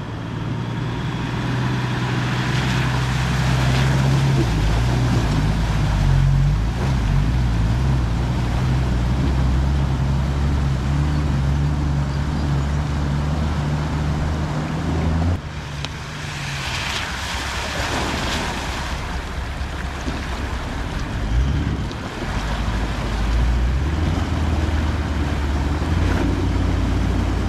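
Four-wheel-drive engine running at low speed, its note shifting with load and dropping briefly about halfway through, under a rushing hiss that swells twice.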